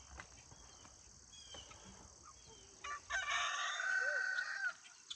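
A rooster crowing once, one long crow starting about three seconds in, over a steady chorus of crickets.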